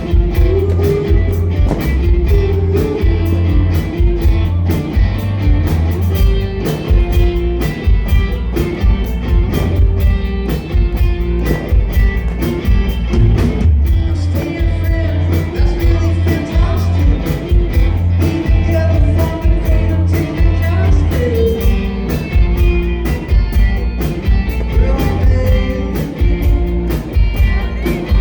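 Live rock band playing a song: sung vocals over guitars, bass and drums, loud and bass-heavy.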